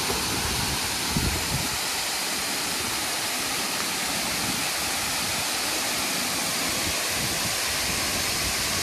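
Steady rush of a waterfall pouring into a pool, with some splashing about a second in.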